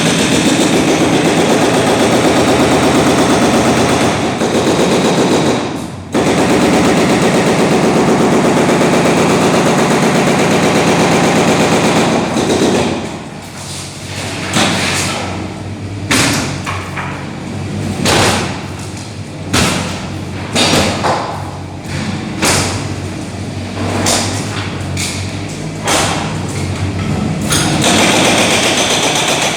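A demolition breaker hammering concrete with rapid, continuous strokes for about twelve seconds. It then works in short bursts with separate knocks, and runs steadily again near the end.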